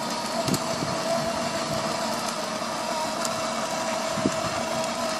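Small electric motor and gearbox of a battery-powered toy ride-on motorcycle, whining at a steady pitch as it drives along. Its plastic wheels rumble and click on the concrete sidewalk.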